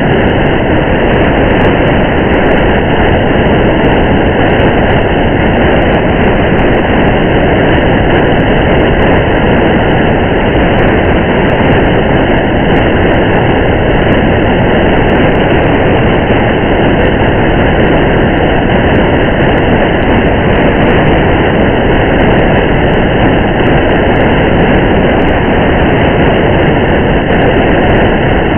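Steady ambience of a car driving a highway in heavy rain: a loud, even rush of rain and tyre noise that never changes, with faint scattered ticks of raindrops.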